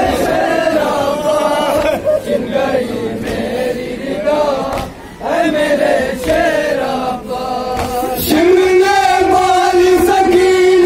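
Shia noha recitation: a male lead reciter chanting a mournful lament through a microphone, with a group of men chanting along, and a few sharp slaps of matam chest-beating. From about eight seconds in the voices hold one long, louder note.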